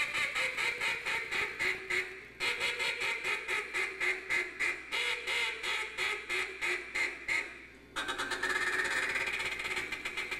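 Contest duck call blown by hand in a calling routine. A run of loud quacks comes at about five a second, then after a short break another run at about four a second that fades out. About eight seconds in, a fast steady chatter starts up.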